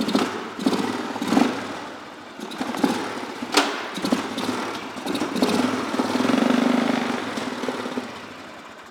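2001 Polaris Sportsman 400 ATV's single-cylinder four-stroke engine running as the machine is driven in reverse, its note rising and falling in surges, with a sharp click about three and a half seconds in. The engine holds a steadier, higher note for a couple of seconds near the end, then fades away.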